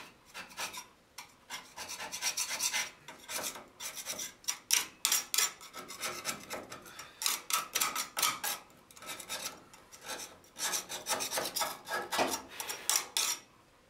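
Rust and old scale being scraped by hand off the steel frame rail of a 1957 Chevy 3100 pickup beside the front shock mount. Quick, scratchy rasping strokes come in bursts with brief pauses between them.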